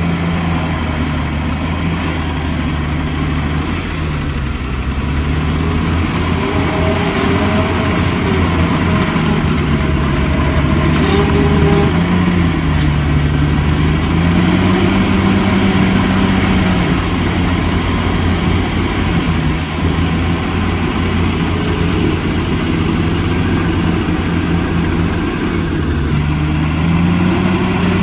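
Heavy diesel engine of an earthmoving machine running under varying load, its pitch rising and falling slowly several times as the throttle and load change.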